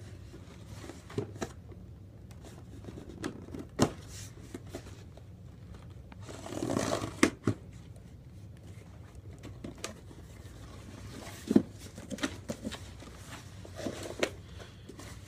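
Cardboard shipping box being cut open by hand with a small throwing-star blade: scraping and tearing of packing tape, with scattered sharp clicks and taps of the blade and cardboard, and a longer tearing scrape about seven seconds in.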